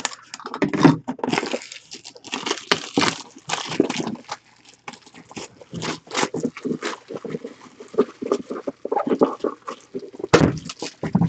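Plastic shrink-wrap being torn and peeled off a sealed trading-card box, an irregular run of crinkling and crackling.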